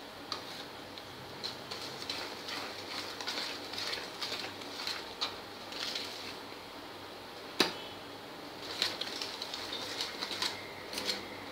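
Wire balloon whisk beating thick sweetened strained yogurt in a plastic bowl, its wires clicking and scraping against the bowl in a quick, irregular rhythm, with one sharper knock about seven and a half seconds in.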